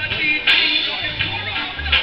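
Live reggae music from a three-piece band, a steady bass line under the other instruments, with sharp drum hits about half a second in and near the end.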